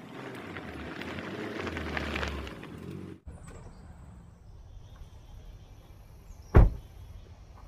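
An SUV drives up a dirt driveway, its tyres crunching and the sound growing louder until it cuts off about three seconds in. Then a car door is slammed shut with one loud thump near the end, over steady insect chirping.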